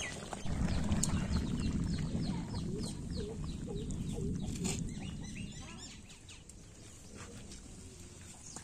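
Chickens: a run of quick, falling chick peeps and a few low hen clucks, over a low rumbling noise that fades after about five seconds.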